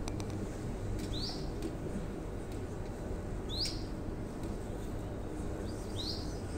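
Caged canary giving three short, high chirps spaced about two and a half seconds apart, each a quick curved note, over steady low room noise.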